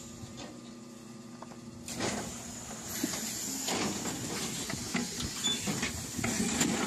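Air-over-hydraulic cow hoof-trimming chute being worked: a steady low hum, then from about two seconds in a sudden rush of air hiss with clanks and rattles of the metal chute frame.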